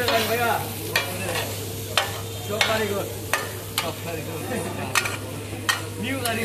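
A metal spatula scraping and striking a large flat iron griddle as chicken is stir-fried and sizzles on it, with sharp metallic clanks about once a second over a steady low hum.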